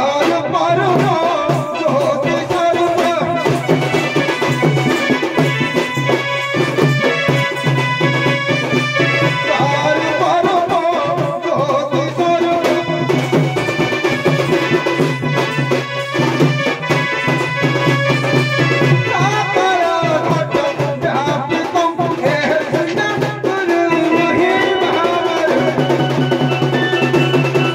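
Traditional Odia Danda Nacha dance music: sustained drone tones under a wavering melody, with drum strokes throughout.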